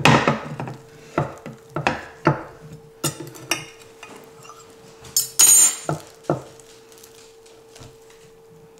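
A table knife cutting through focaccia in a glass baking dish: the blade clicks and scrapes against the glass in a string of short strokes, with a louder rasp about five and a half seconds in.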